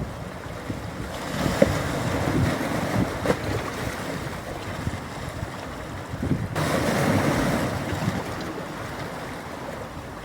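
Ocean waves breaking on a beach, surf washing in two swells: one building about a second in, and a louder one that starts abruptly at about six and a half seconds and fades out over the next two seconds.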